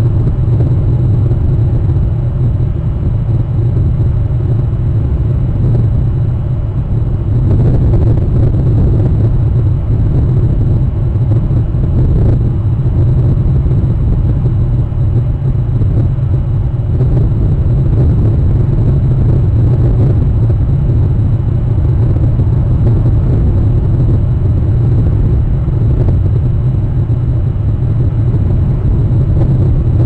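Steady low rumble picked up by an outdoor webcam's microphone, loud and unchanging throughout, with no distinct calls or events.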